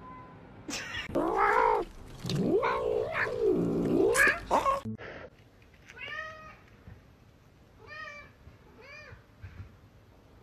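A cat yowling in long, loud cries that slide up and down in pitch for the first few seconds, then, after a cut, a cat meowing three short times about a second apart, more quietly.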